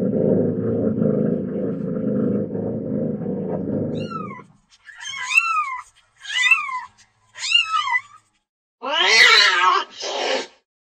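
Domestic cat making a steady low rumbling for about four seconds, then a short falling chirp and three short meows that rise and fall in pitch. About nine seconds in comes a louder, lower and longer meowing cry, broken briefly near its end.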